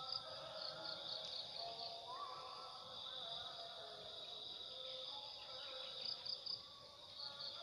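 Insects trilling steadily in a high-pitched drone, with rows of quick chirps near the start and again near the end.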